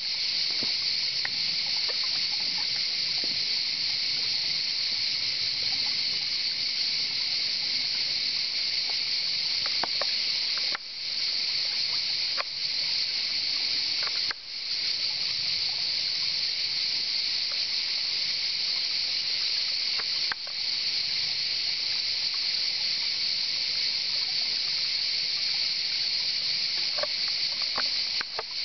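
Cicadas singing in chorus: a dense, continuous high-pitched buzz that dips briefly a few times.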